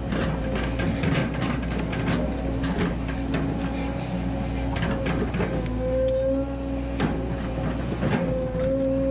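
Volvo 140 hydraulic excavator working: the diesel engine running under load with a steady hydraulic whine that grows louder about halfway through as the boom and bucket move. Frequent sharp clicks and knocks from the bucket, linkage and cab ride over it.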